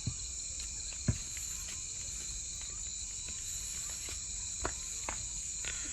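Crickets chirping steadily, with a few sharp cracks from the burning wood of a bonfire, about a second in and twice near the end.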